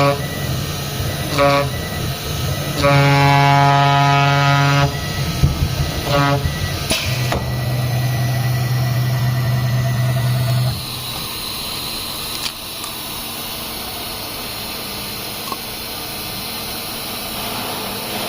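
A loud buzzing horn sounds in long and short blasts at one steady pitch. A low machine hum follows for about three seconds and then cuts off, leaving a quieter steady running noise.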